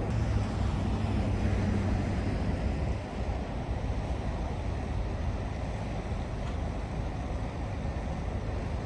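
Steady low rumble of outdoor background noise: wind on the microphone mixed with distant road traffic.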